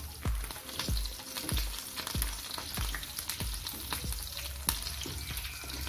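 Chunks of meat sizzling and crackling as they fry in hot oil, stirred with a wooden spatula. A steady bass-drum beat of background music runs underneath, about three beats every two seconds.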